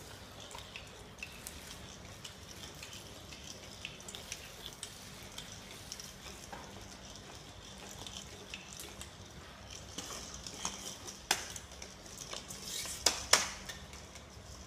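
Light scattered clicks and taps over a faint hiss, with a few sharper knocks in the last few seconds: a kitten batting a furry toy and ball across a tiled floor.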